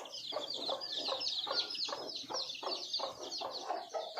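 A brood of desi chicks peeping constantly in many overlapping high chirps, with a hen clucking over them in short repeated notes, about three a second.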